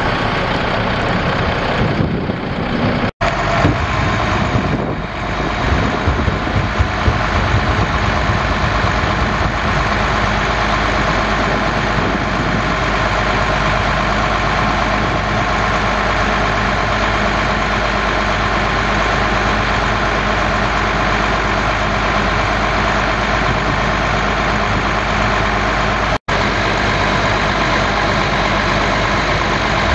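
Cummins ISC 8.3-litre inline-six turbo diesel of a Ford L8000 dump truck idling steadily. The sound drops out briefly twice, about three seconds in and near the end.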